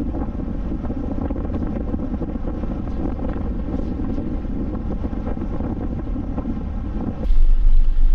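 Wind buffeting the microphone of a hood-mounted camera on a moving vehicle, over a steady rumble of road noise. About seven seconds in it changes abruptly to a louder, deeper rumble of the vehicle heard from inside the cab.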